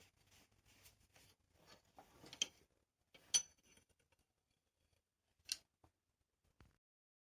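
Small metal pieces handled and set down: scattered light metallic clinks and taps, then a few separate sharp clicks and a dull knock near the end.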